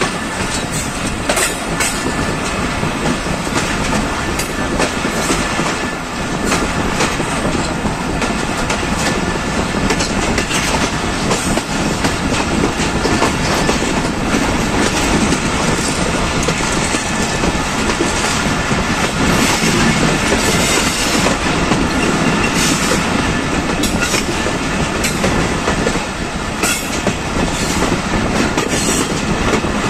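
Passenger coach of the Pakistan Express rolling along the track, heard from its side. A steady running noise of steel wheels on rail, with irregular clicks and clacks over rail joints and points.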